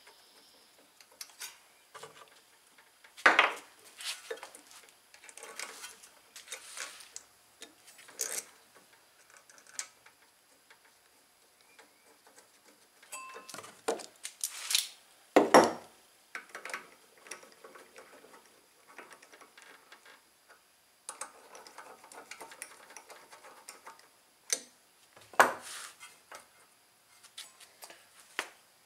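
Socket ratchet clicking and steel tools and bolts clinking while the ignition coil's mounting bolts are started on a small engine, with three louder clanks spread through.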